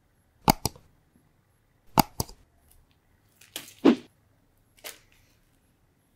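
Sneakers being handled: a pair of sharp taps about half a second in and another pair about two seconds in, a rustle ending in a dull thump about four seconds in, and one more tap a second later.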